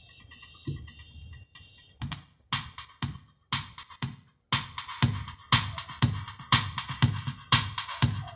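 Electronic music with a drum-machine beat, an mp3 from a USB stick playing back through a Pioneer DEH-1450B car radio's speaker. A held synth chord opens it, and the beat comes in about two seconds in, with a short break near the middle before the steady beat of about two hits a second.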